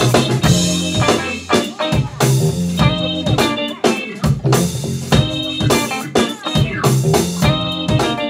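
Funk band playing live with a steady beat: drum kit with cymbals, electric guitar, bass guitar and keyboard.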